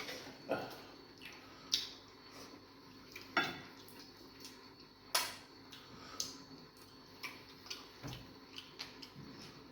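Eating sounds at a meal of egusi soup with fufu: irregular sharp clicks and taps of mouth and dishes, the loudest four at about half a second, under two seconds, three and a half and five seconds in.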